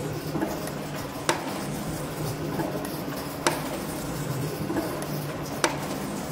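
Metal shaper planing a metal bar: a steady machine hum while the ram strokes to and fro, with a sharp clack three times, about every two seconds.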